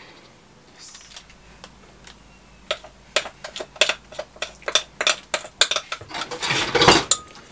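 A metal spoon clinking and scraping against a glass mixing bowl as cake batter is scraped out. It comes as a run of sharp, irregular clinks that starts about three seconds in.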